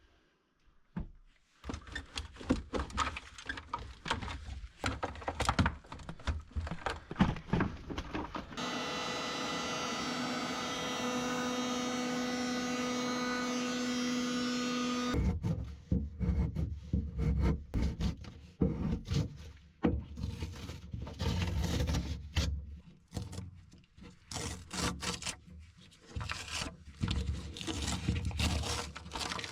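A scraper scratching and knocking at old wallpaper on an oak cabinet, in uneven strokes. In the middle, a heat gun runs steadily with a motor hum for about six seconds before the scraping starts again.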